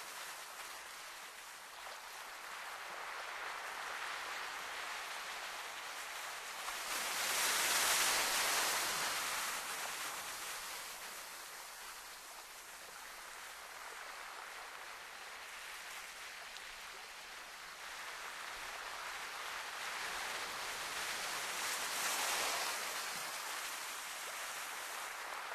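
Sea surf washing against a rocky shore, a steady hiss of water that swells louder twice, about eight seconds in and again near the end.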